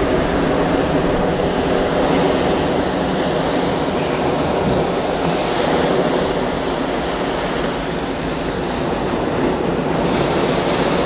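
Ocean surf breaking and rushing up the beach in a steady, loud wash, with wind buffeting the microphone.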